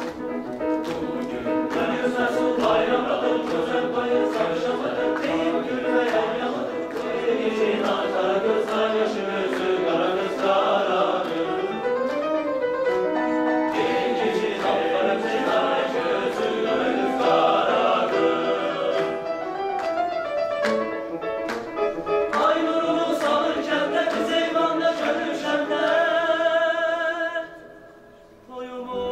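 Mixed choir singing a folk-style song in several parts, with rhythmic hand clapping through it. The singing breaks off briefly near the end.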